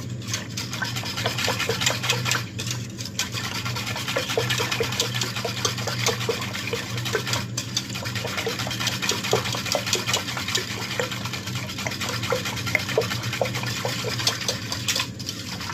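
Wire whisk beating a thin liquid mixture in a stainless steel pot: steady swishing and sloshing, with quick light ticks of the wires against the metal.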